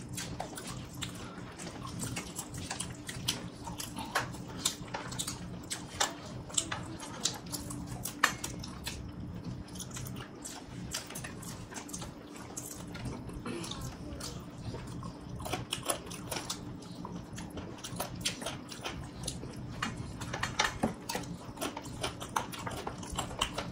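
Close-up eating sounds of people eating biryani by hand: irregular wet chewing, lip smacks and mouth clicks, over a faint steady hum.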